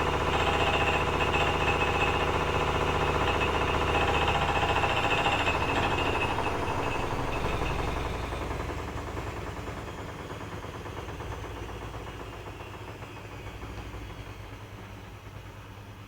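Privileg 9515 Sensation washing machine on its 900 rpm spin, drum and motor running with a rapid repeated knocking from inside. The knock appears only with laundry loaded, and the owner does not know its cause. About five seconds in, the whine starts to fall and the sound fades as the drum slows down.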